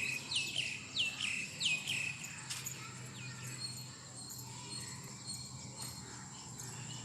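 A bird calling in a quick series of short chirps, each sliding downward, about two a second, fading out after a couple of seconds. Underneath is a steady high-pitched whine and a low hum.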